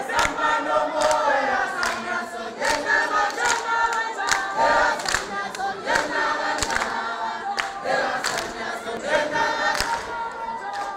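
A large group of voices singing together in chorus, men and women, with sharp percussive hits cutting through at irregular intervals.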